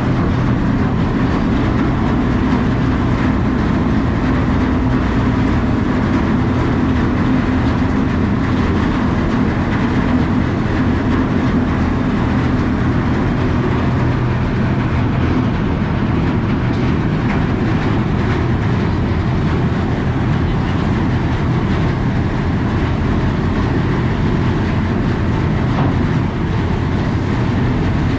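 The ferry MV Hoy Head's engines running steadily as a low, even drone, with a rushing noise over it and no break or change.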